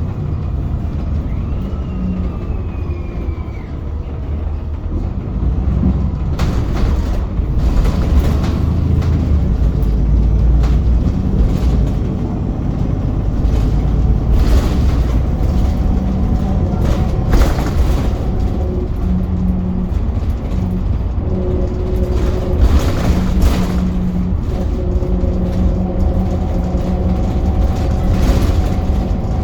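VDL Pulsar bus on the move: a low rumble from engine and road, with steady whining tones from the differential that come and go, mostly in the second half. There are scattered knocks and rattles throughout.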